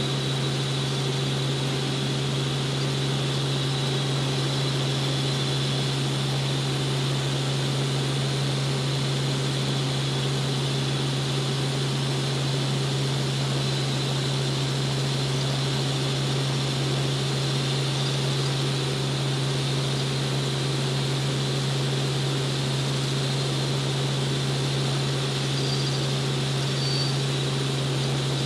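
Helicopter in cruise flight heard from inside the cabin: a steady engine and rotor drone with a strong low hum and a faint high whine over an even rush of air.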